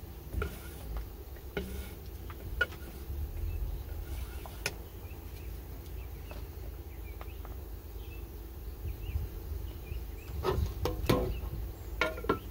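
Wooden stir stick and paint can being handled: a few scattered knocks and clicks, then a quick cluster of louder knocks near the end. Under them runs a steady low wind rumble on the microphone, with faint chirping.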